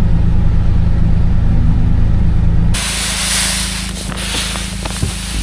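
Vehicle engine running at a steady drone. About two and a half seconds in, the sound changes abruptly to a quieter engine under a broad steady hiss, with a few faint ticks.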